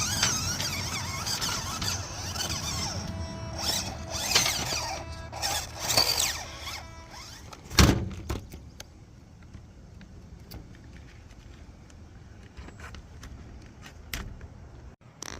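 Small RC crawler's electric motor and gears whining and squealing, the pitch sweeping up and down as it drives, then one loud knock about eight seconds in, followed by quieter scattered clicks.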